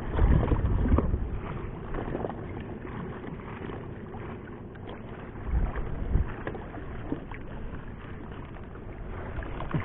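Wind buffeting the microphone aboard a small fishing boat, in low rumbling gusts about a second in and again around five and a half seconds, with a few faint knocks between.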